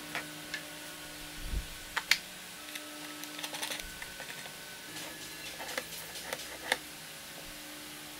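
Small wooden jig and its parts handled on a workbench: scattered light taps and knocks of wood, with a quick run of small clicks about three to four seconds in.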